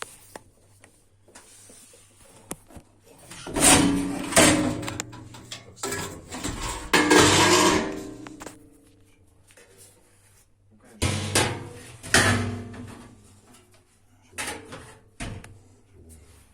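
Repair handling on a washing machine: irregular clanks, knocks and scrapes of hard parts and tools, in several bursts with short pauses between.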